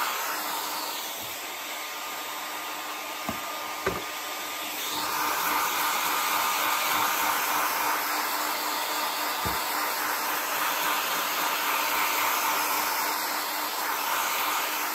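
Handheld hot-air blower running steadily, its rushing air over a low hum, growing louder from about five seconds in as it is played over a laptop motherboard; a few light knocks in between.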